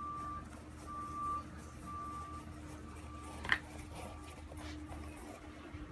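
Electronic beeping at one steady pitch, a half-second beep about once a second, over a low steady hum; the beeping stops about three seconds in, and a single sharp click follows just after.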